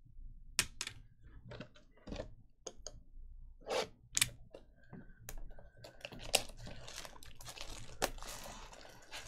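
Cardboard trading-card box being picked up and handled, with scattered taps and clicks, then its plastic shrink wrap crinkling as fingers work at it, denser from about six seconds in.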